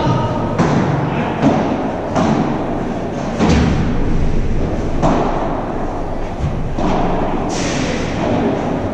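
Padel rally: the ball pops off the players' paddles and bounces on the court and glass walls, a sharp hit about every second. Each hit echoes in a large indoor hall.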